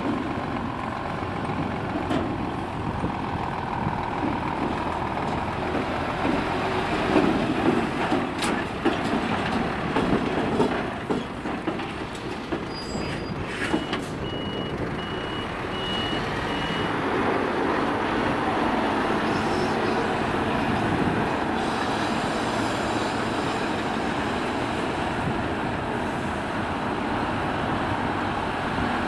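Heavy diesel engine of a Scania R450 tipper truck running as it drives and manoeuvres over gravel, with a few sharp clicks and knocks. Near the middle a reversing alarm beeps about five times. Toward the end the engine noise is steady as the truck waits beside a Volvo L150H wheel loader.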